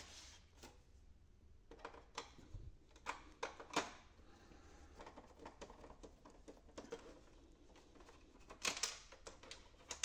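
Faint scattered clicks and taps of a screwdriver and hands on the plastic casing of an HP Officejet 6500 inkjet printer as the screws of its upper panel are removed, with small clusters of clicks a few seconds in and again near the end.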